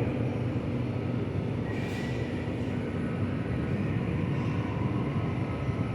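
Steady low rumbling background noise inside a supermarket, with no speech and a faint brief sound about two seconds in.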